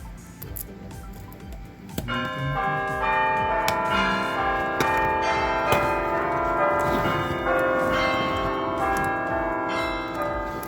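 Background music with bell-like chiming tones that come in about two seconds in and ring on.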